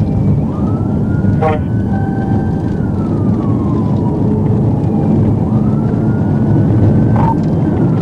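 Police car siren on a slow wail, rising and falling in pitch about every four seconds, over loud engine and road noise from inside the pursuing patrol car.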